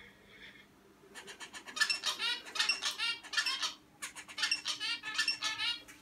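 Young male zebra finch singing its still immature song: a fast string of short, repeated notes that starts about a second in and runs in two stretches with a brief break near four seconds.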